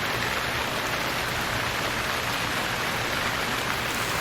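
Steady rain pouring down, an even hiss of many drops.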